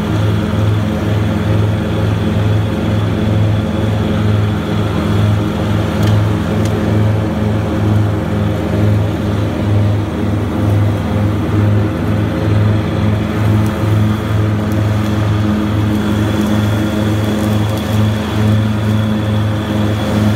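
Grasshopper 325D zero-turn mower's diesel engine running steadily at working speed, driving the 61-inch cutting deck and Power Vac leaf-collection blower. It is a steady low hum that pulses slightly.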